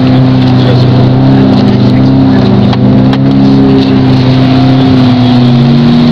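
Geo Prizm's engine held at high revs, heard from inside the car's cabin while it drives through mud; the pitch stays steady with only a slight waver.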